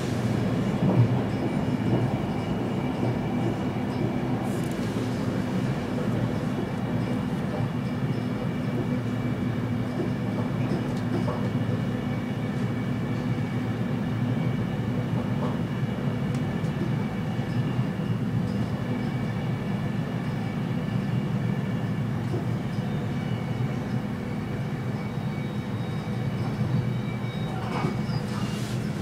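Interior ride noise of an X10 electric commuter train running steadily at speed: a continuous low rumble with several held humming tones over it.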